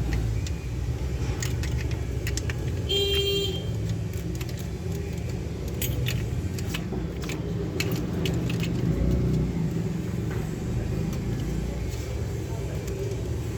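Steady low rumble of road traffic, with a short vehicle horn toot about three seconds in. A scatter of small sharp clicks and rattles runs through the first two-thirds.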